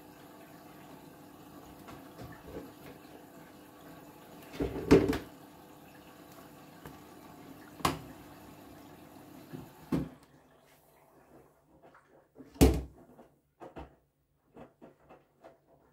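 Whirlpool FreshCare+ front-loading washing machine in its wash phase: a steady hum with several single thuds from the drum, the loudest about five seconds in. The steady running stops about ten seconds in, leaving quieter knocks and clicks.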